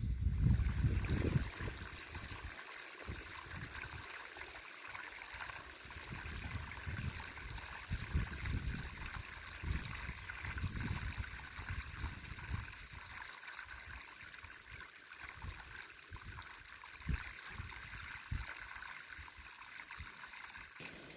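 Steady rush of running water, like a small stream, with irregular low rumbles underneath; it starts and stops abruptly.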